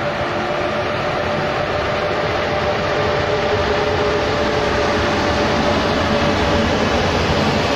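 ČD class 371 dual-system electric locomotive passing slowly at close range at the head of a passenger train, with a steady whine over the rumble of its wheels. The noise grows as the locomotive draws level and the coaches follow.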